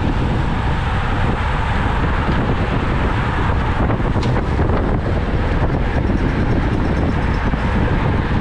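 Steady, loud wind rush buffeting the microphone of a camera carried by a rider on a road bike at racing speed.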